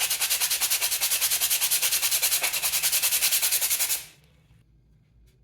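Rapid back-and-forth hand rubbing on a wooden piece, a rasping hiss at about five strokes a second that stops abruptly about four seconds in; a faint click near the end.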